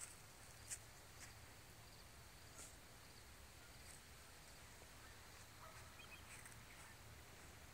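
Near silence: faint outdoor background with a low steady rumble and a few soft clicks.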